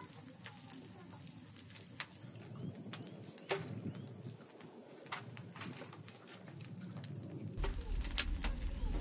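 Wood fire of dry brushwood twigs crackling in a brick dome oven: irregular sharp snaps and pops over the low rush of the flames. A deeper rumble comes in near the end.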